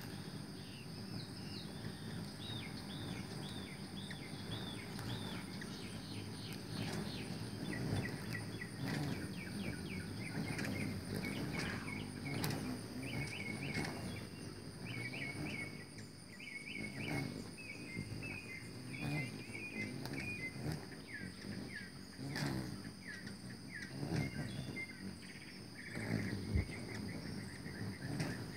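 Hummingbirds hovering and darting around a feeder, their wings humming and fluttering, with repeated runs of short, quick bird chirps. A steady high-pitched insect drone sits under it.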